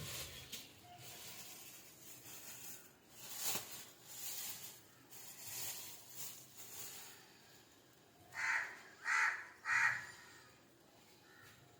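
Three short, harsh animal calls in quick succession near the end, over faint scattered rustling.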